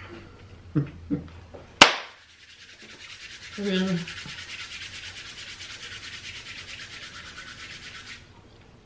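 A sharp click about two seconds in, then a steady dry rubbing hiss of palms rubbed together for about six seconds, stopping abruptly.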